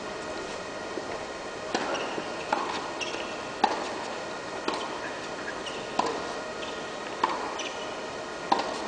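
Tennis rally: the ball struck by racquets and bouncing on the court, a string of sharp pops roughly a second apart.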